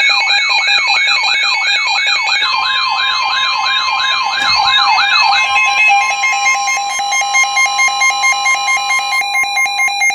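Emergency alert tones for a severe thunderstorm warning. A siren-like alarm of quick falling sweeps, about two or three a second, is joined about two and a half seconds in by a steady alert tone. The steady tone carries on alone after the sweeps stop a little past halfway and pulses in level near the end.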